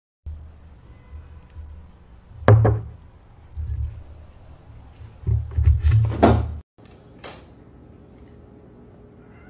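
A few sharp knocks and thumps over a low rumble, the loudest about two and a half seconds in and again about six seconds in, with one more knock shortly after.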